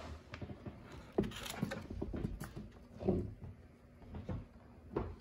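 Handling noise as the camera is picked up and turned: scattered light knocks, bumps and rustles, the louder bumps about a second in, about three seconds in and near the end.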